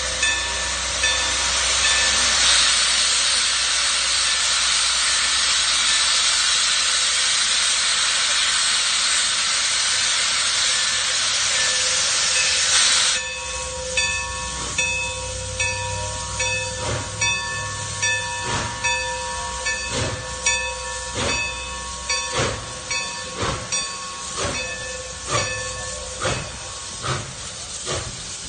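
Milwaukee Road 261, a 4-8-4 Northern steam locomotive, venting steam from its open cylinder cocks in a loud steady hiss that cuts off suddenly about halfway through. The locomotive's exhaust chuffs then follow as the train gets under way, quickening from about one a second to about two a second.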